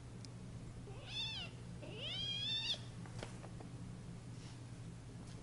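Kitten crying out twice during a play fight: a short high squeal about a second in, then a longer, higher squeal a second later.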